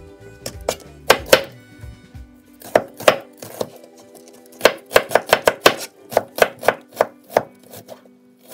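Kitchen knife slicing shallots into thin rings on a plastic cutting board: sharp knocks of the blade striking the board, scattered at first, then a quick run of about three to four strokes a second in the second half.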